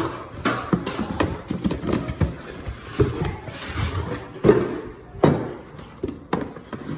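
Irregular knocks, taps and rustling from camera gear and packaging being handled and set down, with the sharpest knocks about three, four and a half and five seconds in.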